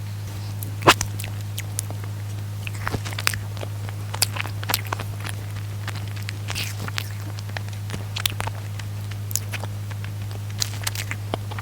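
A person biting and chewing soft cream-filled bread close to the microphone: scattered wet mouth clicks and smacks, the sharpest about a second in, over a steady low hum.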